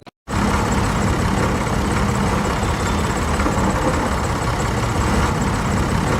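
Engine of a heavy vehicle running steadily and loudly, starting abruptly a moment in.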